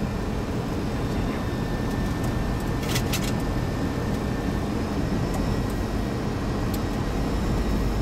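Steady rush of airflow and engine noise inside a Boeing 737-300 cockpit on final approach, with a brief click about three seconds in.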